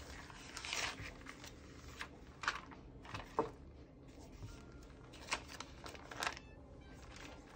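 Paper rustling as sheets are handled and turned while searching for an ink swatch, in about six short swishes.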